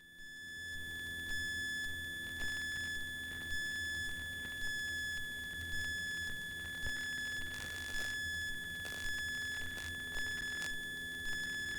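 Steady high electronic whine with a faint short beep repeating about once a second: electrical noise on the cockpit radio/intercom audio feed between transmissions, with a faint low hum beneath.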